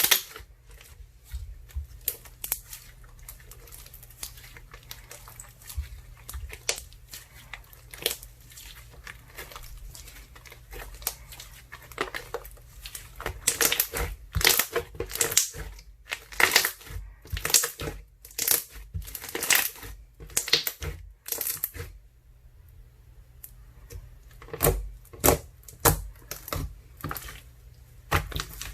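Hands squishing and pressing a wet, jelly-like slime made of icee slime mixed with soothing gel, giving irregular crackling and popping clicks. The crackles are sparse at first and come in denser, louder runs through the middle and again near the end.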